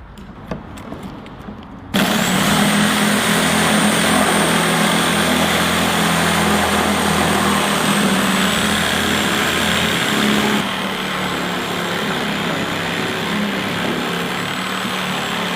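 Corded handheld flush-cut circular saw running. It switches on abruptly about two seconds in, after a few light clicks, and runs with a steady motor hum and a thin high whine. It drops a little in level after about ten seconds.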